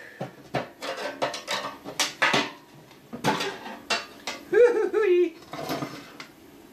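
Screwdriver levering at a plasma-cut panel in a steel air-compressor tank, giving a string of sharp metal clinks, taps and scrapes.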